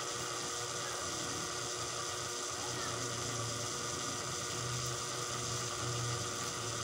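Steady electrical hum with many overtones, holding the same level throughout, with a low part of it swelling and fading a little in the second half.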